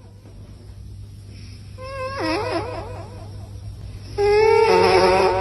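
A sleeping cat snoring with high, wavering pitched notes on its breaths: one about two seconds in and a louder one from about four seconds in to the end.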